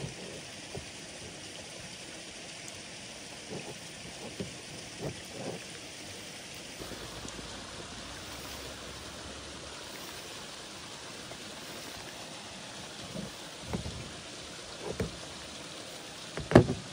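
Cutlery knocking against plastic plates and the tabletop during a meal: a few soft knocks, then more near the end, ending in one sharp, loud clack. A steady background hiss runs underneath.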